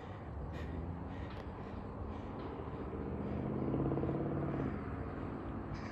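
Car engine and road noise while driving: a steady hum that swells about four seconds in and then eases.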